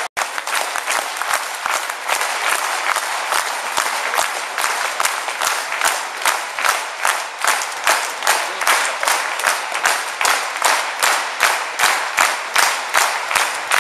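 Audience applause, a dense clatter of many hands that after a few seconds falls into rhythmic clapping in unison, about three claps a second.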